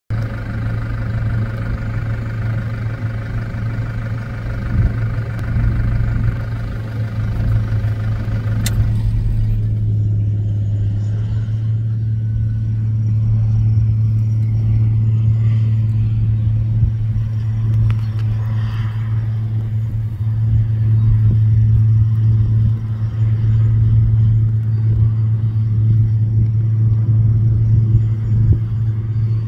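A steady, low engine drone runs under a rough low rumble. A higher whine in the mix cuts off with a click about nine seconds in.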